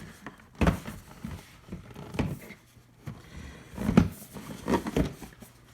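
Cardboard board-game box being opened and its contents handled: several separate soft knocks with light scraping between them.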